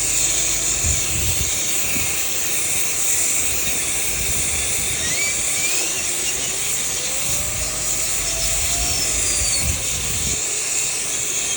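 Powered dryer vent cleaning equipment running steadily with a high hiss and low rumbles. Faint squeals rise and fall about halfway through.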